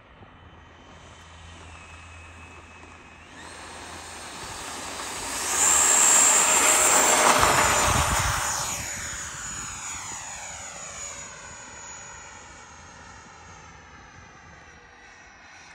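Whine of the Freewing B-2 Spirit model's electric ducted fans on its takeoff run. The pitch steps up as the throttle opens, the sound is loudest as the model passes close by, then drops in pitch and fades as it climbs away.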